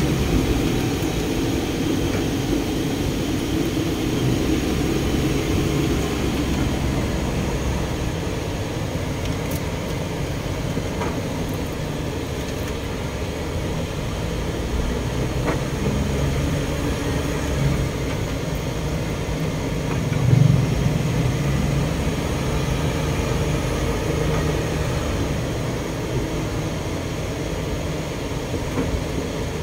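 Inside a moving car: steady engine hum and road noise. There is one brief louder bump about twenty seconds in.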